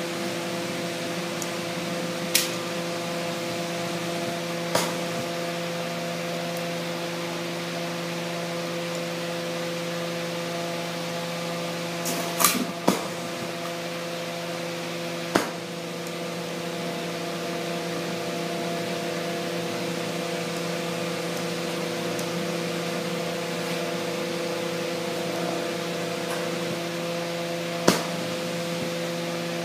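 Steady machine hum with a hiss under it, typical of a lampworking bench's motor or fan. Six short sharp clicks sound over it, including a close pair about twelve seconds in.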